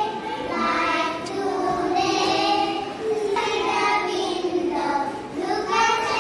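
A small group of young children singing a song together in unison, in held, sung notes.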